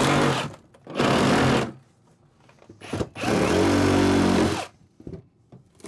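Reciprocating saw with a Milwaukee Torch blade cutting through plywood subfloor in three bursts, the last one the longest at about a second and a half.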